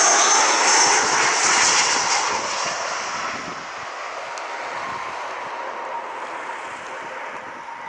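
Aircraft engines passing close, loud at first, then fading from about two seconds in to a quieter, steadier rush with a thin whine running through it.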